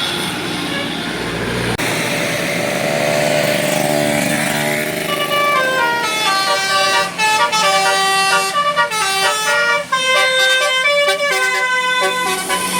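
Bus's Basuri telolet horn playing a tune of quick separate notes, faint at first and clear from about five seconds in, over the noise of the passing bus.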